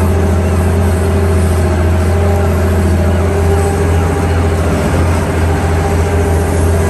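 Excavator's diesel engine running steadily with a strong low hum.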